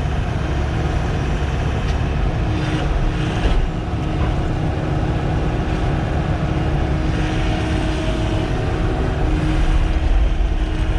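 Heavy diesel engine running steadily: a constant low rumble with a steady hum over it.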